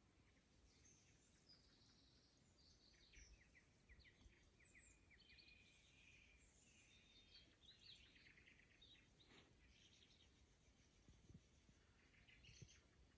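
Faint birdsong: scattered chirps and short rapid trills from several small birds over a quiet background hiss.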